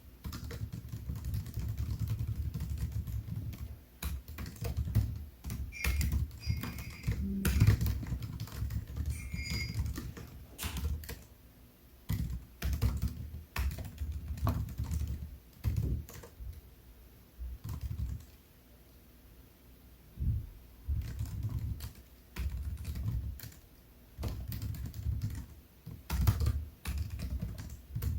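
Typing on a MacBook Air keyboard: runs of quick key clicks broken by short pauses. A few brief higher tones sound about six to ten seconds in.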